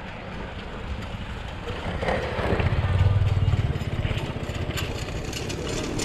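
Motorcycle engines going by on the road, one passing close and loudest about halfway through, over a steady low traffic rumble.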